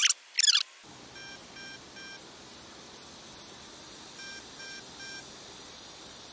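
Two groups of three short, high beeps about three seconds apart from the MJX Bugs 2W drone's radio transmitter: its low-voltage warning that the flight battery is running down. Two brief scratchy rasps open the sound, and a steady hiss comes in about a second in.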